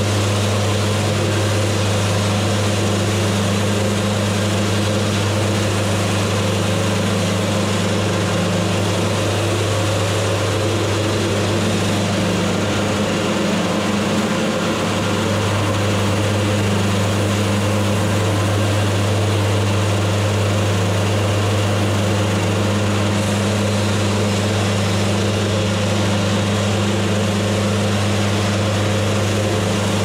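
Wood-Mizer portable band sawmill running steadily at a constant pitch, its band blade sawing lengthwise through a log in one continuous pass.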